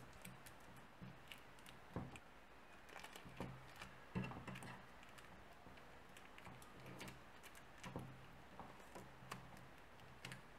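Faint crinkling and crackling of clear plastic film as it is wrapped and pressed around a wooden lantern handle, in many small irregular clicks.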